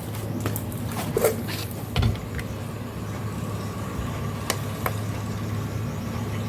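Steady low background hum with scattered short clicks and knocks, the largest about two seconds in.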